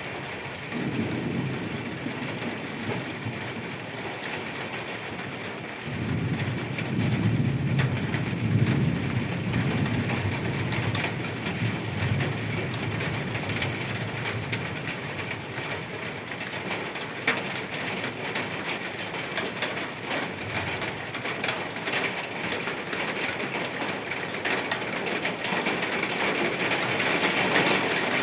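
Steady rain falling in a city at night, with low rumbling about a second in and again, longer, from about six to twelve seconds. The rain grows louder near the end.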